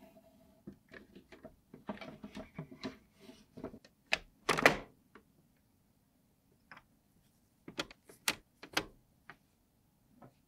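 Plastic parts of a portable Sony TV clicking and knocking as it is put back together: a busy patch of small knocks and scrapes, one loud knock about halfway through, then three sharp clicks near the end as the control knobs are pressed onto their shafts.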